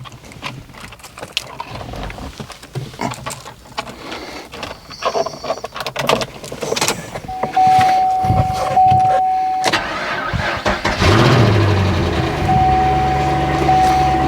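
Chevrolet Camaro SS V8 being started: clicks and handling noises, a steady electronic warning tone for a couple of seconds, then the engine catches about eleven seconds in and settles into a steady idle while the warning tone sounds again.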